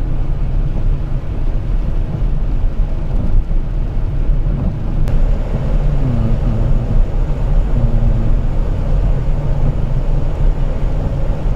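Steady low rumble of a car's road and engine noise heard inside the cabin while driving, with a faint click about five seconds in.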